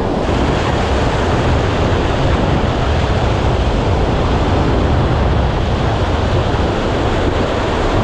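Sea surf washing onto the shore in a steady rush, with wind buffeting the microphone.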